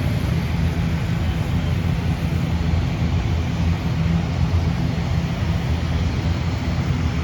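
Steady, loud low rumble of a large vehicle engine running, with no clear change in pitch or level.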